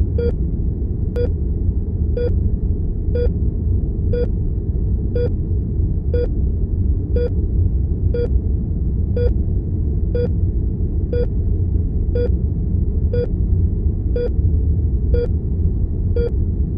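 Patient heart monitor beeping steadily about once a second, each beep a short single tone, over a loud, steady low rumble of room tone.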